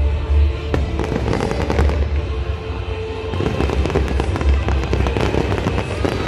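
Fireworks display with many shells bursting in quick succession: a dense run of bangs and crackles, with music playing underneath.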